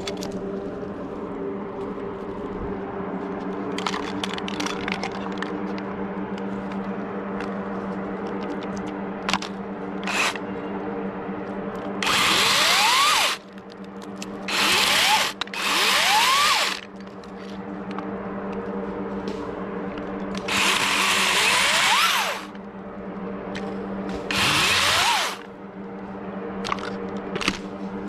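DeWalt 60V battery top-handle chainsaw run in five short bursts, its motor whine rising as it spins up, under a steady low hum.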